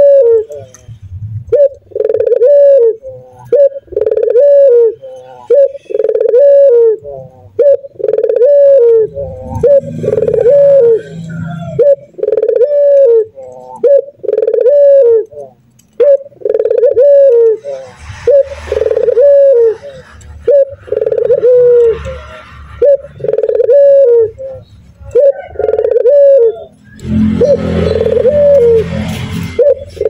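Male ringneck dove (burung puter) cooing over and over, a short bending coo about once a second.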